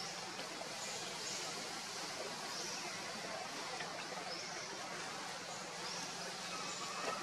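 Outdoor tree-canopy ambience: a steady hiss with a short, high, upward-sweeping call repeating about every one and a half seconds, and a faint click near the end.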